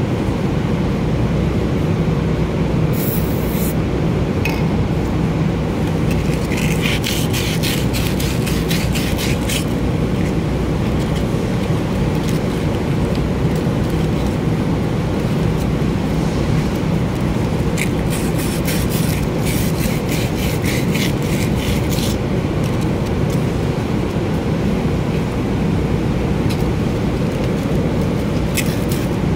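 Quick back-and-forth rubbing of cloth and sandpaper on the copper commutator of a power window motor's armature, cleaning it. The rubbing comes in a few spells of several seconds, about four strokes a second, over a steady low drone.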